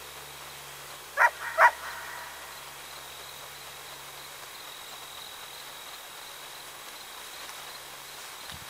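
Two short, loud animal calls in quick succession about a second in, over a faint steady background.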